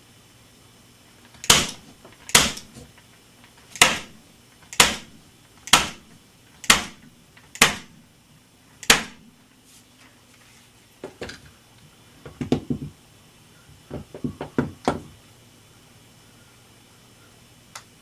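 Electric upholstery staple gun being loaded and handled: eight sharp clacks about a second apart, then a few short clusters of lighter clicks.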